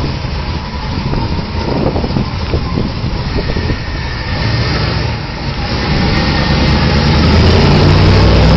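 Car engine running through an aftermarket GMMG cat-back exhaust, a low steady rumble that grows louder over the last couple of seconds.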